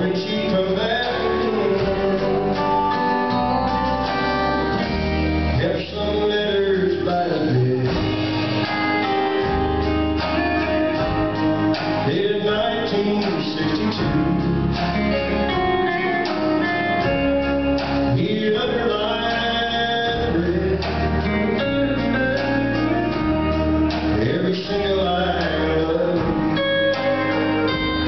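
Live country ballad: a man singing with acoustic guitar and a backing band.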